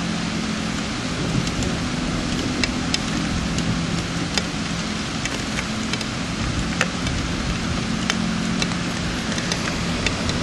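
Heavy rain falling steadily, with sharp ticks of single drops striking a surface close by, over a steady low hum.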